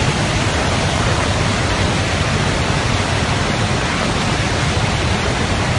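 Muddy flash-flood torrent rushing past, a loud, steady noise of churning water.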